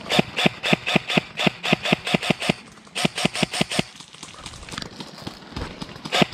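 An airsoft gun firing in rapid bursts, about seven evenly spaced shots a second. There is a long burst of about two and a half seconds, a short burst just after three seconds, and a third starting at the very end.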